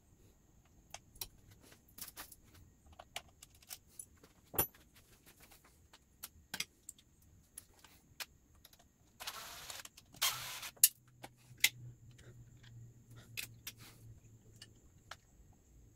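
Scattered metallic clicks and clinks of hand tools and small parts as the throttle housing is unscrewed from a motorcycle handlebar, with two short, louder bursts of noise a little past halfway.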